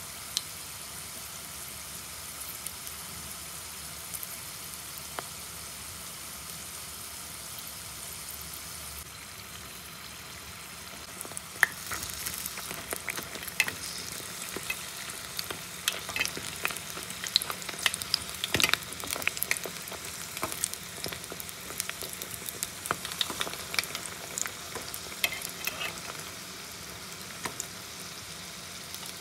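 Sambusa deep-frying in hot oil, a steady sizzle. From about eleven seconds in, sharp crackles and clicks break out over it as the pastries are turned with a fork.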